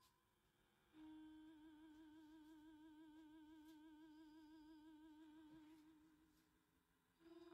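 Faint background music: a single held note with a wavering vibrato, coming in about a second in and fading out near the end.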